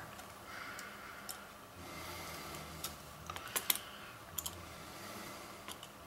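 Faint, scattered small clicks and taps of round-nose pliers, a resistor's wire leads and a small circuit board standing on screw legs being handled, with a few sharper clicks around the middle and near the end.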